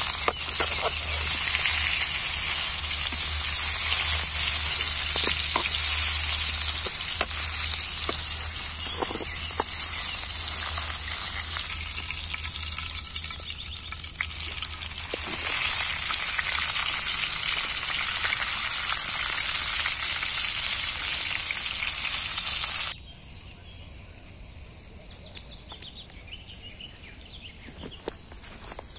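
Beef frying hard in oil in a metal pan over a wood fire: a loud, dense sizzle with occasional clicks and scrapes of a metal skimmer and tongs. It eases briefly about halfway, then cuts off suddenly near the end, leaving a much quieter background.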